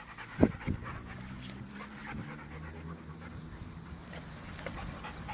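Dogs panting as they play, with two short, sharp sounds about half a second in.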